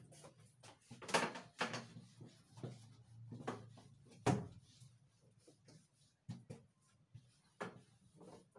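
A whiteboard on a stand being moved and set up: a series of irregular knocks and bumps of the board and its frame, the loudest about four seconds in.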